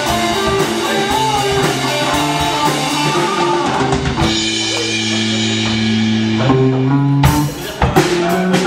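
Live rock band playing: electric guitar and drum kit. A chord is held for about two seconds near the middle, then the drums come back in with hard hits near the end.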